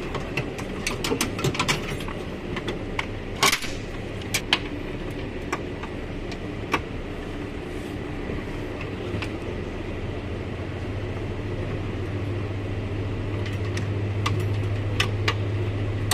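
Scattered clicks and light knocks of hands and metal and plastic parts being worked inside a car door around the latch and lock rods, over a steady low hum that grows louder about nine seconds in.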